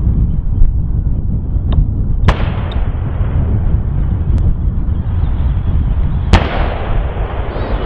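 Two sharp gunshots about four seconds apart, each followed by a trailing echo, from a ceremonial gun salute, heard over heavy wind rumble on the microphone.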